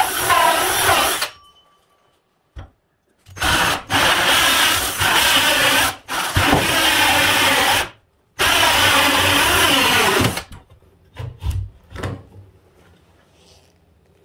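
Electric drill boring a hole in wood. It runs in several bursts of about two seconds each, stopping between them, and the pitch drops as each burst starts to bite. A few light knocks follow near the end.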